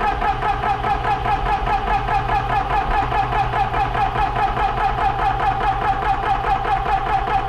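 Benjamin Traveler 4500 PSI portable PCP air compressor running steadily with a fast, even pulsing, pumping up a PCP air rifle's reservoir toward a 3000 PSI cutoff.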